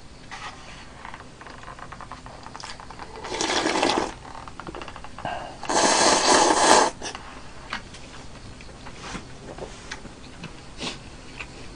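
Noodles slurped loudly from a bowl of instant udon in broth: one slurp about three seconds in and a longer one around six seconds, with quieter mouth sounds between.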